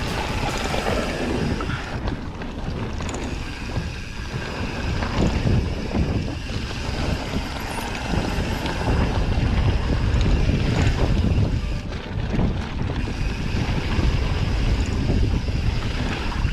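Mountain bike rolling fast down a loose dirt-and-gravel singletrack: tyres rumbling and crunching over the surface, with a rattle of small knocks from the bike and wind buffeting the microphone.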